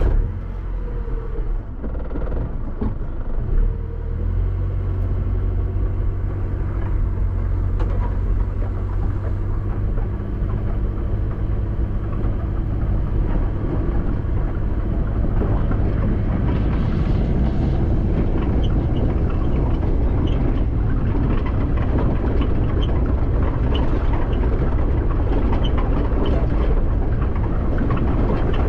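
A vehicle engine running just after being started, a steady low rumble. From about 16 seconds in, a rougher noise fills in over it.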